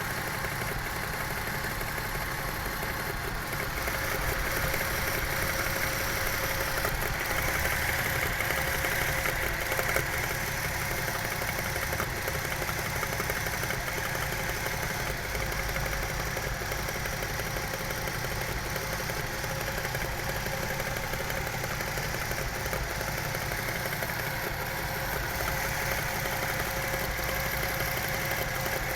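Toyota 1JZ-GE inline-six idling with a suspicious knock, the revs trembling and dipping slightly. Others suggest checking the camshaft's tightening as the cause.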